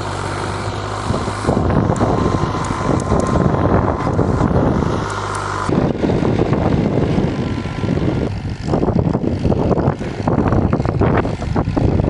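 Fiat 480 tractor's three-cylinder diesel engine running steadily under load as it pulls a fully lowered 13-tine cultivator through the soil. After about six seconds the sound becomes rougher and more broken.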